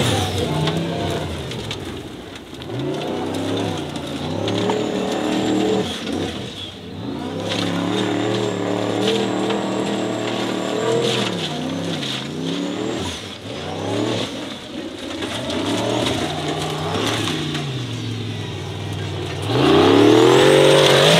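Formula Offroad hill-climb buggy's engine revving hard in repeated bursts, the pitch climbing and dropping over and over as the throttle is worked. A faint high whine rises and falls with the revs. The loudest, highest rev comes near the end.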